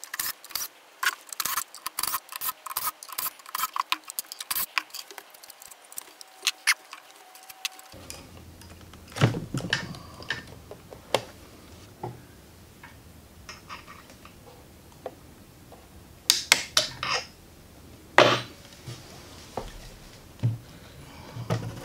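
Handling clatter of a lithium-ion battery module being worked loose and slid out of its aluminium case: a quick run of small plastic-and-metal clicks in the first few seconds, then scattered louder knocks.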